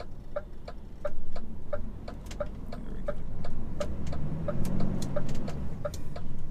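Turn indicator ticking in an HGV cab, about three even clicks a second, over the low running of the truck's diesel engine, which swells about four seconds in.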